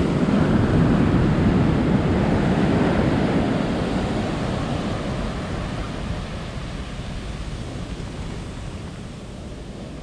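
Ocean surf washing up a sandy beach: a steady rushing of breaking waves, loudest early on and slowly fading away.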